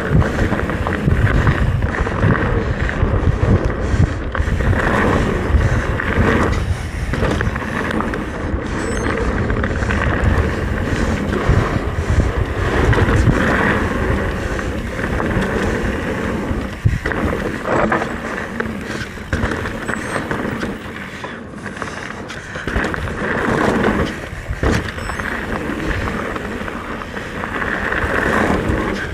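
Mountain bike riding down a dirt trail: tyres rolling over the ground with repeated bumps and knocks from the bike, and wind buffeting the microphone.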